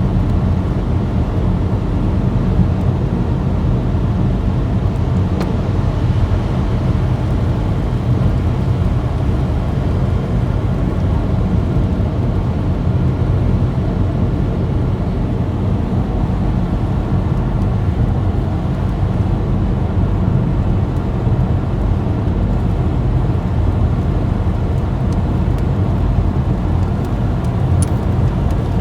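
Steady road and engine noise from inside a moving car's cabin, a low, even rumble with no change throughout.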